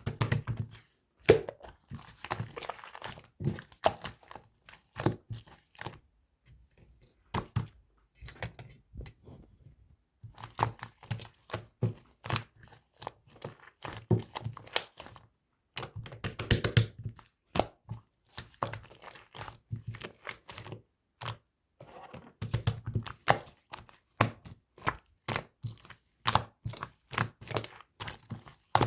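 White slime being squished, pressed and stretched by hand, giving irregular sticky clicks, pops and crackles with a few louder thuds.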